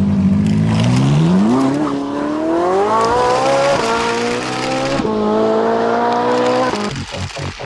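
Race-car engine sound accelerating through the gears: the pitch climbs, drops at each of two shifts and climbs again, then cuts off near the end. A few clicks follow.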